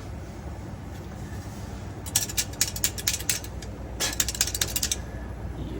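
Rapid ratchet-like clicking from a hand tool working on the refrigerator's screws, in two bursts: one about two seconds in and another about four seconds in.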